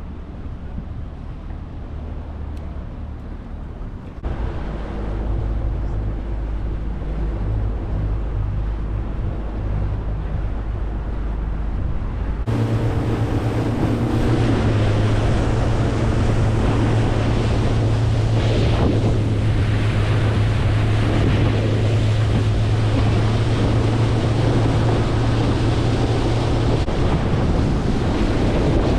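Small boat's motor running under way, with wind buffeting the microphone and water rushing past. The sound gets abruptly louder about four seconds in and again about twelve seconds in.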